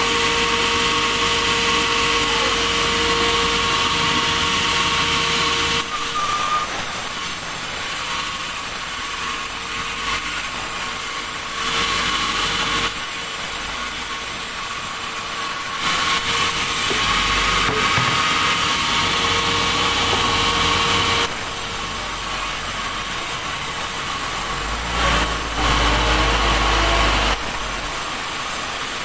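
Sawmill machinery running: a steady motor hum with a held whine, its sound shifting abruptly every few seconds.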